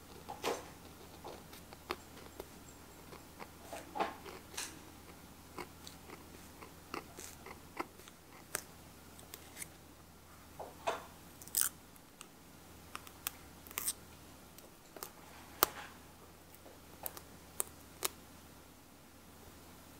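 Metal tweezers picking at and lifting a cut-out of layered masking-tape circles on a paper journal page: scattered crisp clicks and crackles, one or two a second, at an uneven pace.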